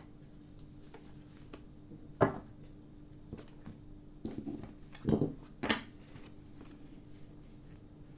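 Tarot cards being shuffled and handled by hand: a sharp tap about two seconds in, a short rustle around the middle, then two louder slaps close together, over a steady low hum.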